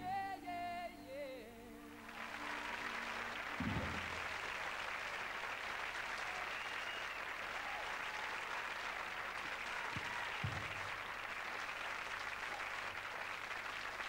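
A male singer's last held note and the band's final chord die away, and about two seconds in a studio audience breaks into steady applause that carries on to the end, with two low thumps under it.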